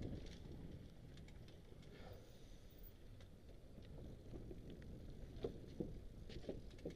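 Mountain bike rolling down a dirt trail, picked up by a helmet-mounted camera: a low rumble of tyres on dirt with scattered light clicks and rattles, and a few sharper knocks near the end.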